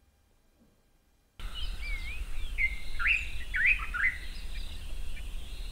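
Field recording of a dark-capped bulbul (Pycnonotus tricolor) singing, starting about a second and a half in: a few short, sharp whistled notes that sweep up and down. Other species call steadily at a higher pitch behind it, over low background noise.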